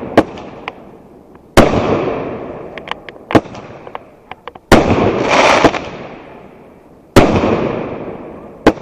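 Fireworks going off: three loud booms about two and a half seconds apart, each fading out over a second or two, with sharp cracks and smaller pops in between and a burst of crackling after the second boom.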